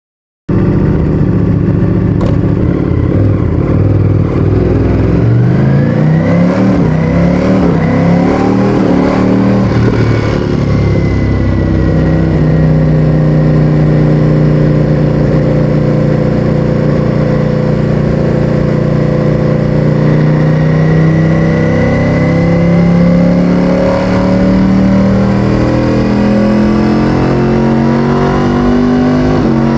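Ducati Streetfighter V4S's 1103 cc Desmosedici Stradale V4 engine, breathing through an Akrapovic exhaust, running hard under load. The pitch climbs steeply several seconds in, holds fairly steady through the middle, then rises again near the end.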